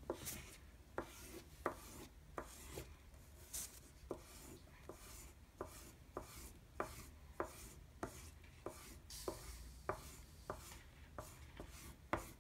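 Oil pastel stick scratching up and down on brown construction paper in quick repeated strokes, each ending in a light tap, about one and a half strokes a second.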